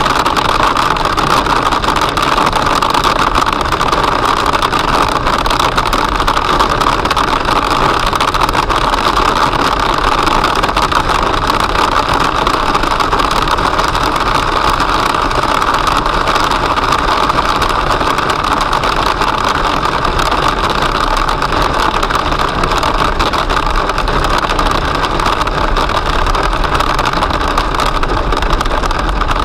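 Hail and heavy rain drumming on a car's roof and windscreen, heard from inside the cabin as a loud, dense, unbroken patter of small hits over the car's road noise.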